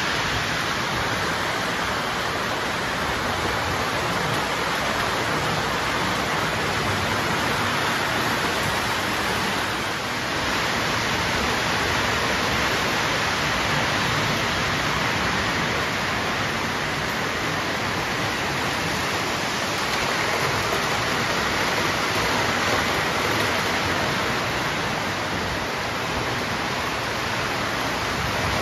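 Model train running along an overhead shelf track, its wheels on the metal rails making a steady rushing rumble that swells and eases a little as it moves.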